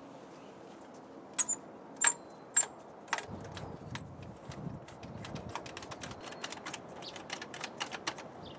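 Ratchet and socket clicking on the bolt of a pool pump's lid clamp as the clamp is loosened. A few louder metallic clicks with a ringing edge come in the first few seconds, then a run of quicker, lighter clicks at about four a second that stops just before the end.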